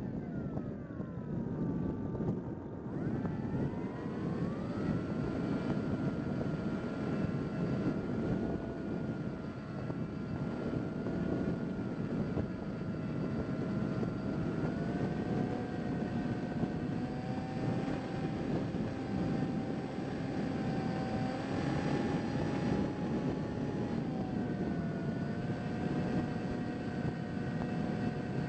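Electric motor and propeller of a Bix3 foam RC trainer plane whining over steady wind rush, as picked up by the plane's onboard camera. The whine falls over the first two seconds, climbs again about four seconds in, and then steps up and down a few times as the thrust is adjusted to hold a slow, steady descent.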